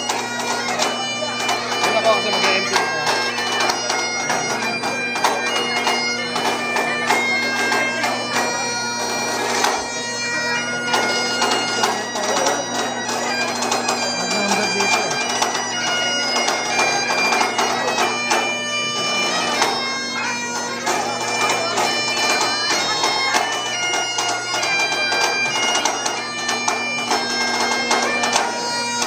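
Bagpipes playing a tune over their steady drones, without a break.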